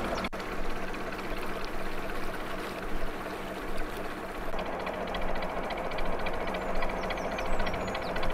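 Narrowboat's inboard diesel engine running steadily as the boat cruises along the canal.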